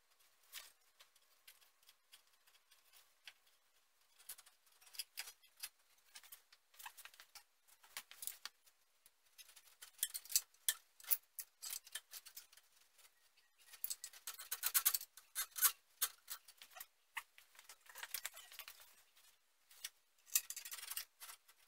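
Small plastic and metal clicks, scrapes and rattles, irregular and mostly light, as gloved hands fit a transmission cooler against a radiator and push its plastic zip-tie-style mounting pins through. Two busier spells of handling come about two-thirds of the way in and near the end.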